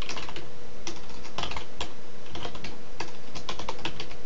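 Computer keyboard typing: irregular key clicks, some in quick runs of several keystrokes.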